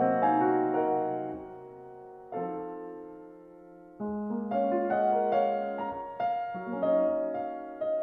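Slow, gentle solo piano music with notes that ring and fade. It softens in the middle and picks up again about four seconds in.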